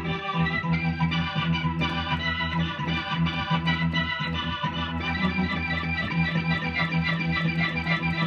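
Rock organ solo in E minor on a Yamaha Motif XF7 synthesizer's "Rocky organ" voice: a held low chord sustains under quick, changing right-hand lead notes.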